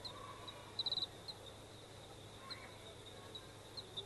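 Small birds chirping in short high calls, with a quick run of four or five chirps about a second in, over a faint steady high tone and a low steady hum.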